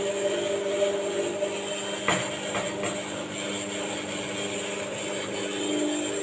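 Single-disc rotary floor scrubber running steadily, its electric motor humming as the pad scrubs wet, soapy tile. A single short knock comes about two seconds in.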